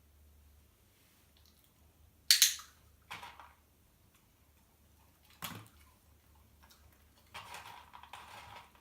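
Handling noises: a sharp double clack about two seconds in, the loudest sound, then a few softer knocks and a stretch of rustling and crunching near the end.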